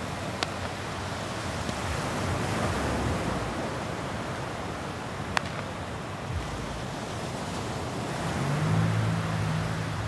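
Small waves breaking and washing up on a sandy beach, a steady wash of surf that swells twice. Two sharp clicks are heard, and a low hum comes in near the end.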